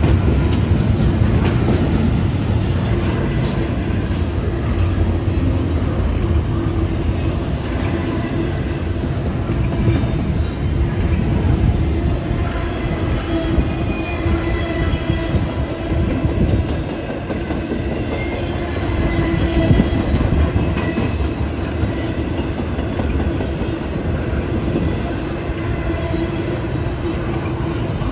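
Double-stack intermodal freight train's container well cars rolling past at track speed: a steady, loud rumble and clatter of steel wheels on rail, with a few sharp knocks.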